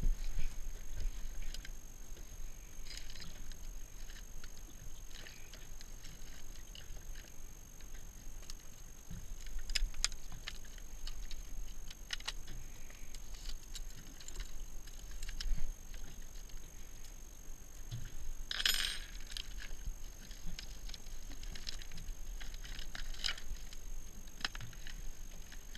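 Fishing tackle being rummaged through: hard plastic popper lures clicking and rattling against each other and lure packaging rustling, in scattered small clicks and rustles, with a louder crinkle about 19 seconds in.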